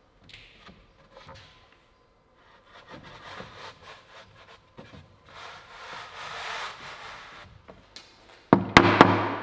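A solid pine door panel sliding down into the grooves of the frame, wood scraping and rubbing against wood and the foam spacers. Near the end come several loud, sharp knocks on the wood as the panel is knocked down into place.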